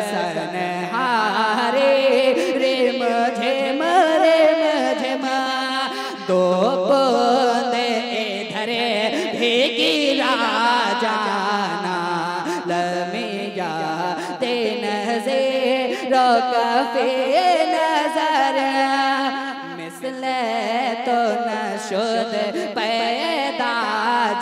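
A man singing a naat into a microphone, unaccompanied, in long wavering, ornamented phrases.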